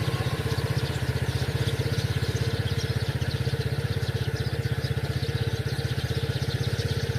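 A small engine idling with an even low throb, with birds chirping faintly over it.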